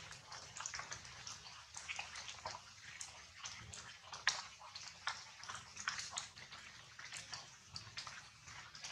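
Rain falling: a dense, irregular patter of small drops ticking.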